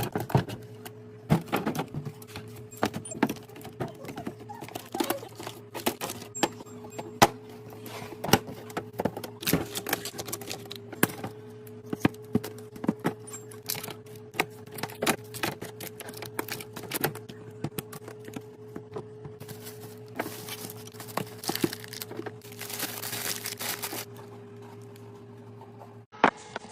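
Groceries and containers being handled and set down while a fridge is restocked: a string of irregular clicks, taps and knocks of plastic and glass, with a burst of rustling packaging near the end. A steady low electrical hum runs beneath and stops shortly before the end.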